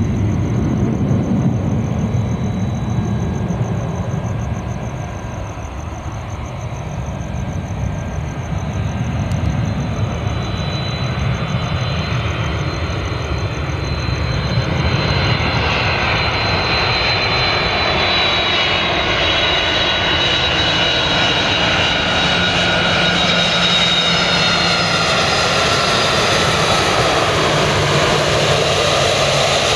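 Jet airliner engines running, with a high whine that slowly falls in pitch; the engine noise grows louder and hissier from about halfway through.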